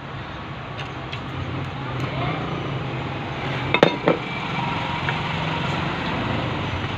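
Steady street traffic noise with light clinks of chopsticks and dishes at the table; two sharp clinks close together about four seconds in are the loudest sounds.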